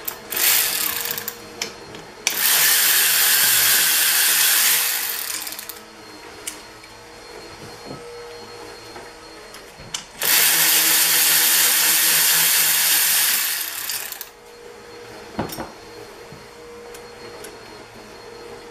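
Pneumatic air ratchet running in a short burst, then two long bursts of about three and a half and four seconds, spinning fasteners off a two-stroke dirt-bike engine case. Light clicks and clinks of tools and parts in between.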